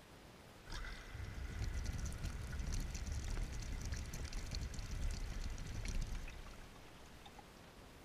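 Washing machine filling: water starts rushing into the drum suddenly about a second in, with low rumbling, crackling and a steady high tone over it, and stops about six seconds in. Heard from inside the drum.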